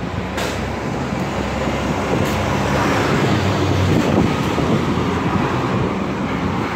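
Diesel engine of a roll-off truck hauling a steel dumpster container, driving past and pulling away: a low, steady engine note over road noise, loudest a few seconds in as it passes. Two short knocks are heard about half a second and two seconds in.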